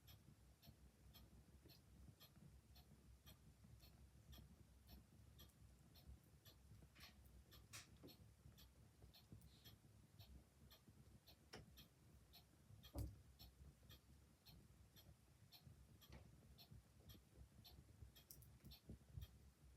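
Faint steady ticking of a clock, with now and then a soft crackle or pop from an open fire; the loudest pop comes about two-thirds of the way through.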